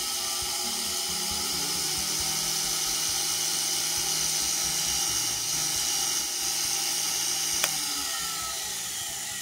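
Sherline lathe's rebuilt 90 V DC motor, fitted with a new commutator, running the headstock spindle at speed with a steady high whine. A single click comes near the end, and the pitch then starts to fall as the motor winds down.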